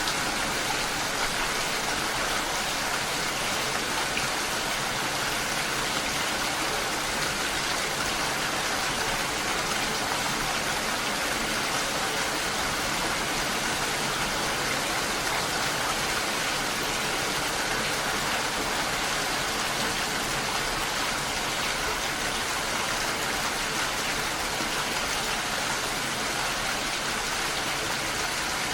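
Steady rain, a dense, even hiss with no breaks or single drops standing out.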